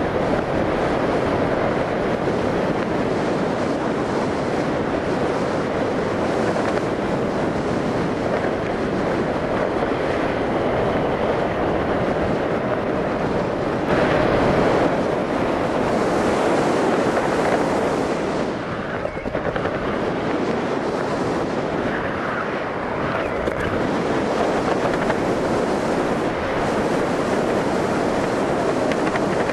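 Steady rush of wind over a helmet camera's microphone as a parachutist descends under an open canopy, a little louder for a few seconds around the middle.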